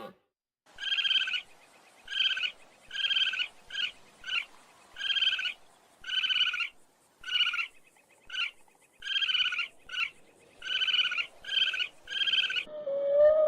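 An animal calling over and over: about fifteen short, high-pitched calls, each about half a second long, roughly one a second and sometimes in quick pairs.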